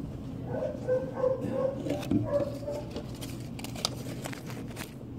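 A wavering, whimpering voice for about two seconds, starting just after the start, then a few light clicks.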